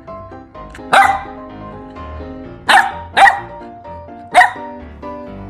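Golden retriever puppy barking four short times over background music, two of the barks close together in the middle.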